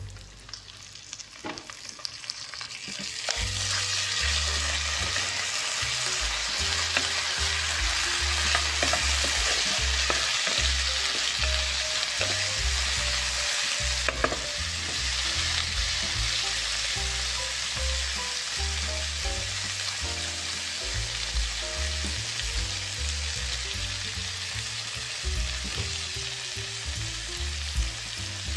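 Corned beef and diced tugi (lesser yam) frying in a pan with a steady sizzle. The sizzle swells up about three seconds in, as the corned beef goes into the hot pan, and stays strong after that.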